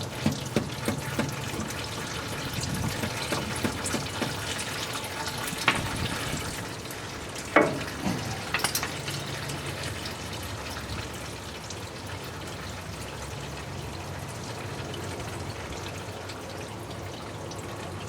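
Automatic transmission fluid pouring and splashing steadily out of a loosened 46RE transmission oil pan as it drains. A quick run of knocks near the start, rubber-mallet taps on the pan, and a single louder knock with a short ring a little before halfway.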